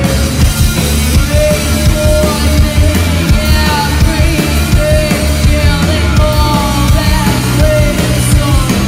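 Punk rock band playing live and loud: driving drums, bass and electric guitar under a singer's lead vocal.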